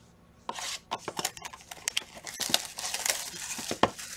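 A sealed trading-card hobby box being torn open by hand: its plastic wrap crinkles and tears and the cardboard rustles in a quick run of sharp crackles and snaps, starting about half a second in.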